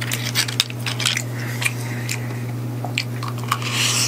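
Steamed Manila clam shells clicking and clattering against each other and the pan as fingers pick through them, then a wet slurp near the end as the meat is sucked from a shell.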